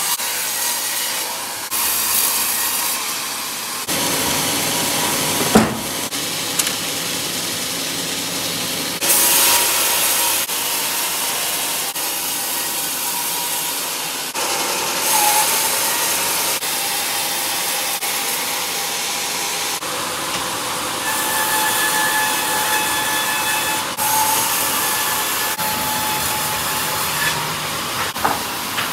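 Band sawmill blade cutting through a large burled hardwood log: a steady rushing hiss with a faint high whine, broken into stretches by abrupt changes. There is a single sharp knock about six seconds in.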